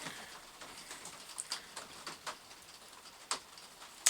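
Faint handling noises of wire and small crimp connectors, a few light scattered clicks with a sharper one a little over three seconds in.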